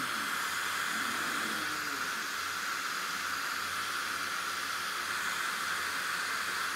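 Steady hiss of a small electric blower running, at an even level, with faint low murmurs beneath it.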